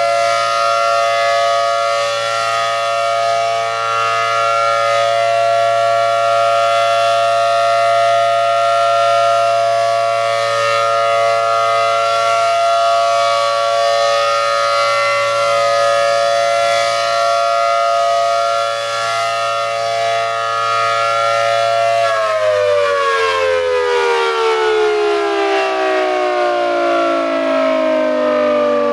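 ACA Allertor 125 electromechanical siren with a 10/12-port rotor, sounding a steady two-tone chord on full alert. About three quarters of the way through, the pitch starts to fall steadily as the siren winds down.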